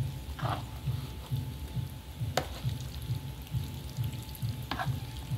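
Wet squishing of sauced spaghetti being lifted and tossed with plastic serving spoons in a plastic bowl, with a sharp click about two and a half seconds in. A low thumping beat about twice a second runs underneath.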